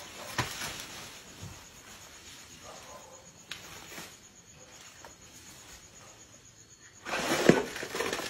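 An elephant trampling and tearing a felled palm tree: dry fronds rustling and snapping, a few light cracks early on and then a loud burst of rustling near the end with one sharp crack. Night insects chirr faintly throughout.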